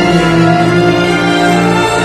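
Instrumental music for a figure-skating free-skate program, played as held notes that move to new notes near the end.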